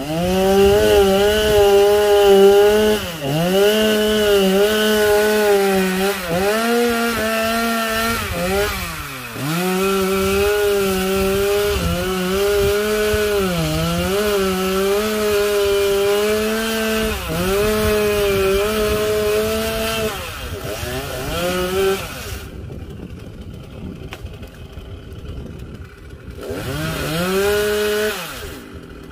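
Two-stroke chainsaw running at high revs and cutting into the trunk, its pitch sagging under load several times. About two-thirds of the way through it drops back to a low idle, then revs up again briefly near the end.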